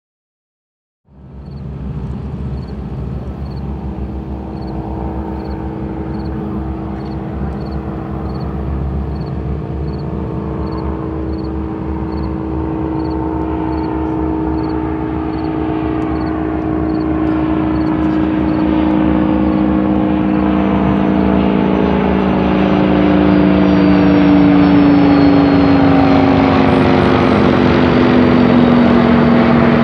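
Percival Provost's radial piston engine and propeller together with the BAC 167 Strikemaster's jet engine, flying overhead in formation. A steady engine drone starts about a second in and grows louder as its pitch slowly drops, with a high jet whine joining in the second half.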